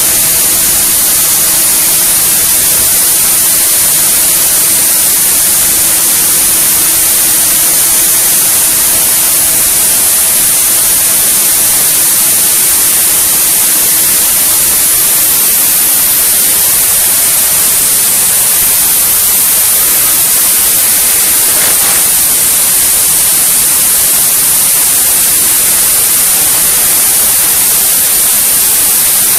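CNC machine running while machining an aircraft wing rib: a loud, steady hiss with a faint low hum during roughly the first twelve seconds.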